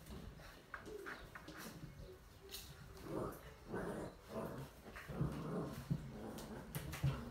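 Old English Sheepdog puppies making short, low vocal sounds as they play, more of them and louder in the second half, with a few light clicks scattered through.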